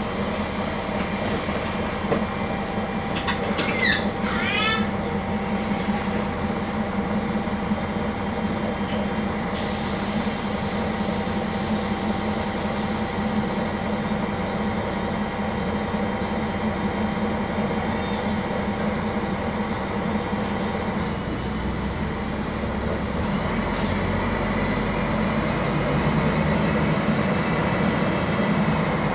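Mercedes-Benz O-500 MA articulated bus with an OM-457 LA diesel and Voith DIWA automatic, heard from inside the bus: the engine runs steadily, with brief high squeals a few seconds in and a long hiss of air from about ten seconds. Past twenty seconds the engine note deepens and grows louder.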